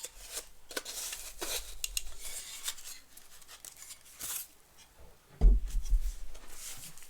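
Metal-and-plastic tablet stand being handled and its stiff joints worked: scattered light clinks and clicks, with a few heavier knocks about five and a half seconds in.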